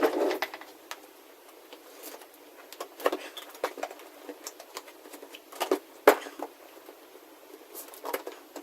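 Scattered taps and knocks of a coffee-machine box and its packaging being handled, the sharpest knock about six seconds in.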